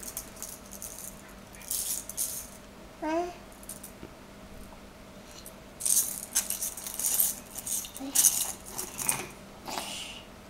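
Rattling and clinking of glittery Christmas ornament balls as a baby handles and shakes them, in bursts around two seconds in and again from about six seconds on. A short rising squeal from the baby about three seconds in.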